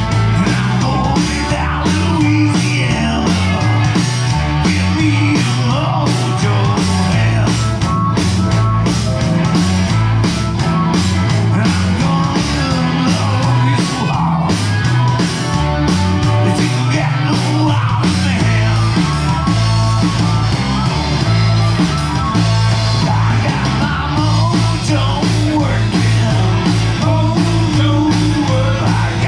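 Rock song with a singer over a driving band and a steady beat.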